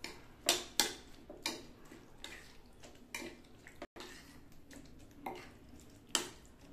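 A spoon knocking and scraping against a glass bowl as chicken pieces are mixed into a wet spice paste, in irregular clinks about a second apart.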